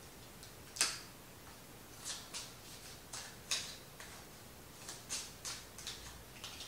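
Tarot cards being handled: about ten crisp, irregular snaps and taps, the sharpest about a second in.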